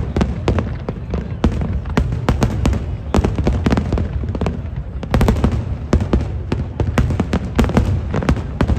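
Fireworks display: a rapid, continuous string of sharp bangs and crackles over a steady low rumble, with denser clusters of bursts about five seconds in and again near the end.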